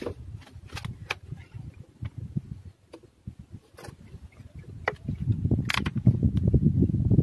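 Scattered light clicks and knocks of an air rifle being handled and raised to aim, with a heavy low handling rumble on the microphone building over the last couple of seconds.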